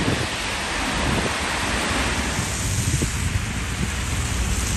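Steady rush of tyres on wet, slushy pavement from heavy expressway traffic, with wind buffeting the microphone.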